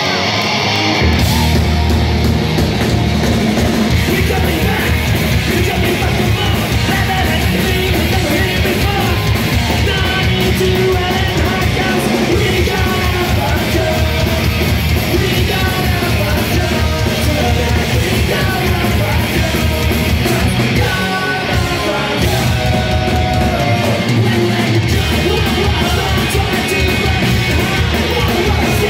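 Punk rock band playing live at full volume: distorted electric guitars, bass guitar and drums with shouted vocals. The bass and drums kick in about a second in and drop out briefly twice past the middle.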